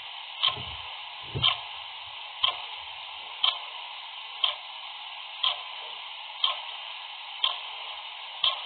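Clock ticking steadily, one tick a second, over a steady hiss.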